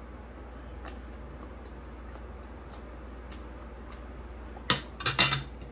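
Metal spoon and fork tapping and clinking against a dinner plate: a few faint taps, then a quick cluster of sharper, louder clinks near the end. A low steady hum lies underneath.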